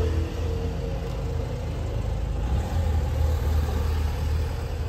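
A steady low engine rumble, like a motor vehicle running.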